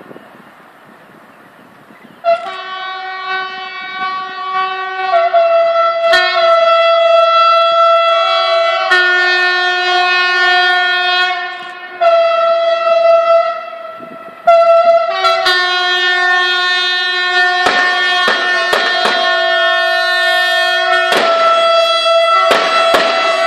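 Train horns sounding long, near-continuous blasts of several notes at once that shift in pitch, broken off briefly a few times. From about two-thirds of the way in, a rapid series of sharp bangs joins them.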